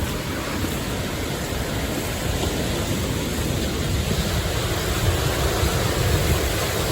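Ocean surf washing on the shore: a steady rush of noise, swelling a little in the low end about four seconds in.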